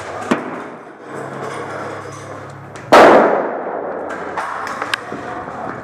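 An airsoft grenade going off: one loud bang about three seconds in, with a tail that dies away over about a second. A few sharp clicks come before and after it.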